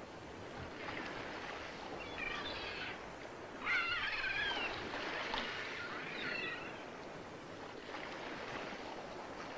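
Faint harbour ambience: a soft wash of water with three short bursts of wavering bird calls.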